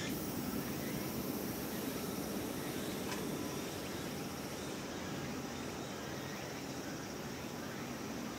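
Low rumble of a train that has just passed, slowly fading as it draws away, with insects chirping steadily.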